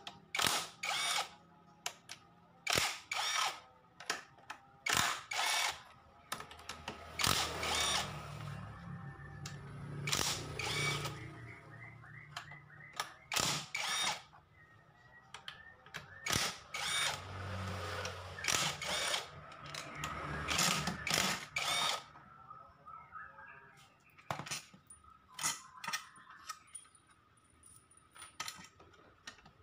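Cordless power driver with a socket spinning out the bolts of a Honda Vario scooter's CVT cover, in many short bursts with brief pauses between them.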